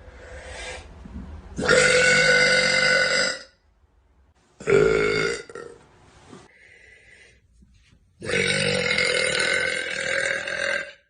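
A woman burping loudly three times: a long burp of almost two seconds, a short one, then the longest, almost three seconds, each held at a steady pitch.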